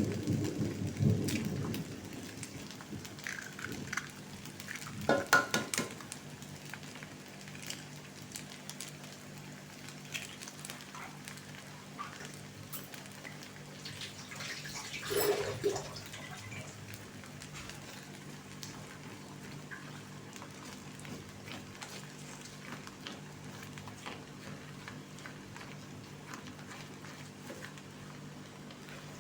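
Food sizzling in a frying pan, a steady soft hiss, with a few louder clatters of a utensil against the pan about five seconds in and again about fifteen seconds in.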